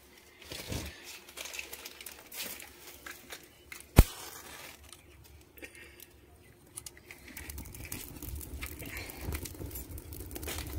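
Dry twigs catching fire in a clay wood-burning chulha: crinkling and crackling as the kindling is handled and lit, then a low rumble of flames building over the last few seconds. A single sharp click about four seconds in is the loudest sound.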